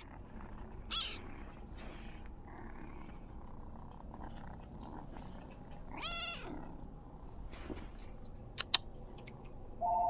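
Domestic cat purring steadily with two meows, a short high one about a second in and a longer rising-and-falling one about six seconds in. Two sharp clicks close together near the end, then a steady tone starts just before the end.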